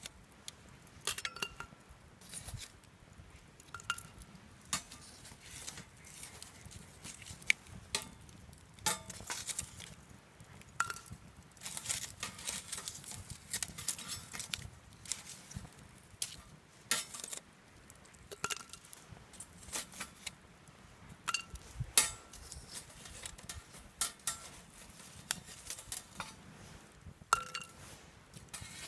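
Scattered sharp clicks and light metallic clinks, irregularly spaced, several ringing briefly at the same pitch, with the loudest about two-thirds of the way through.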